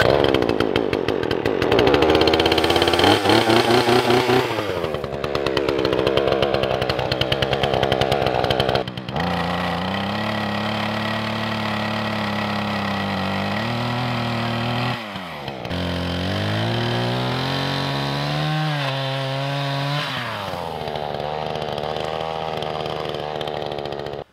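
Two-stroke gas chainsaw cutting through small trees, revving high under load for the first several seconds. It then runs at lower, varying speeds, with brief drops near nine and fifteen seconds before it picks back up.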